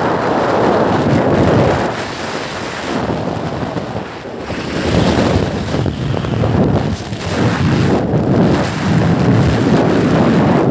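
Wind rushing and buffeting over the microphone from a moving vehicle, a loud rumbling rush that dips a few times and swells again.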